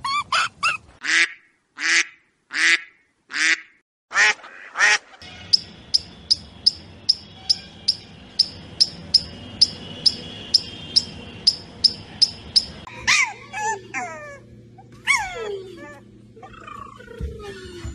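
Ducks and geese calling in a run of repeated quacks and honks: spaced calls at first, then a fast even series of short calls, about three a second, and near the end several calls that slide down in pitch.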